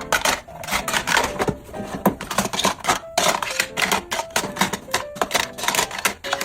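Rapid, irregular clicking and clattering of small items being handled and set down during organizing, with faint background music underneath.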